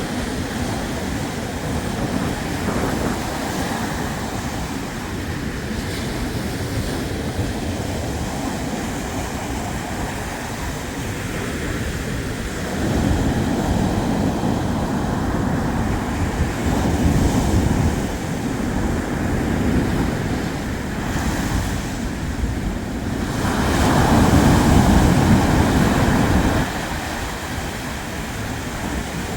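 Black Sea surf washing onto the shore in a steady rush, with two louder surges of breaking waves, one about halfway through and a bigger one near the end.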